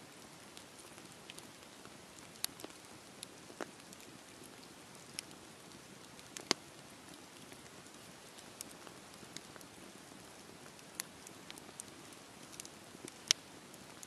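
Split logs burning in an open wood fire: a steady low rush broken by scattered sharp crackles and pops. The two loudest pops come about six and a half seconds in and near the end.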